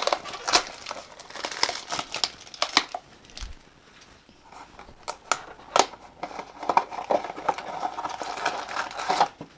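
Hands crinkling and tearing open the plastic packaging of a Funko Mystery Mini blind box, a run of irregular crackles and snaps that thins out briefly around the middle.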